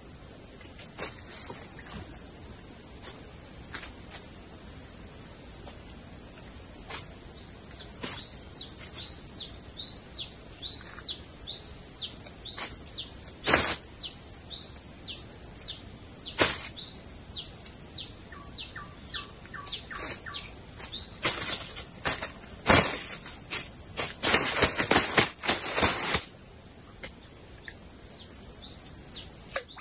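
A steady, high-pitched insect drone, with a bird repeating short falling chirps about twice a second for several seconds in the middle. A few sharp clicks stand out, with a quick cluster of them near the end.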